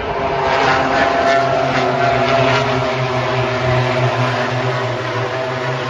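A pack of MotoGP racing motorcycles passing at full throttle, their 1000 cc four-cylinder engines running at high revs. The sound is loudest about a second in, then eases a little as the bikes pull away.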